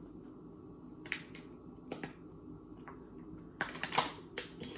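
Thin plastic water bottle clicking and crinkling while someone drinks from it: a few single clicks, then a quick cluster of louder crackles about three and a half seconds in.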